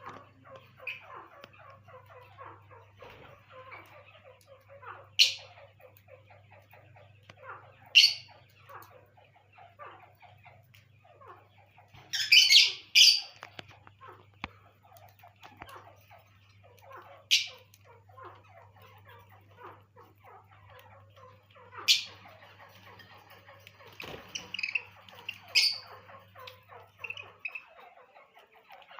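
Small caged parrots chattering softly throughout, with a handful of loud, shrill single calls a few seconds apart and a brief burst of loud calls about twelve seconds in.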